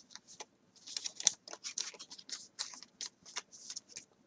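Trading cards being handled and slid against one another, perhaps in plastic sleeves: a quick, irregular run of soft scrapes and clicks.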